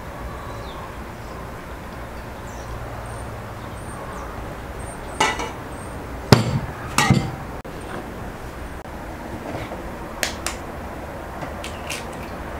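Eggs knocked against the rims of bowls to crack them, with clinks of a small glass bowl: a few sharp knocks a little past the middle, the loudest two close together, then lighter taps near the end.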